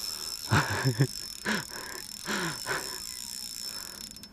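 Insects chirring in a steady high-pitched tone, with a man's short wordless vocal sounds, like mutters or grunts, three times: about half a second in, at a second and a half, and around two and a half seconds in.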